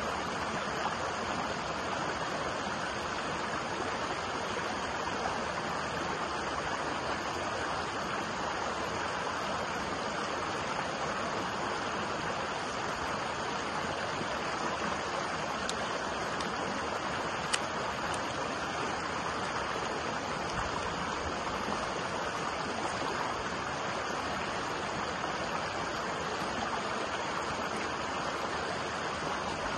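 Small rocky stream tumbling over stones in shallow white-water runs: a steady, even rush and splash of water.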